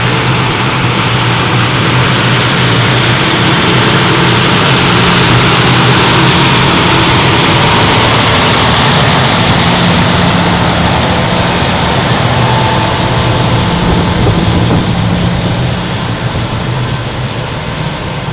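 Versatile 550 four-wheel-drive tractor's Cummins six-cylinder diesel engine running steadily as the tractor drives past. It grows louder as the tractor comes close and falls away over the last few seconds as it moves off.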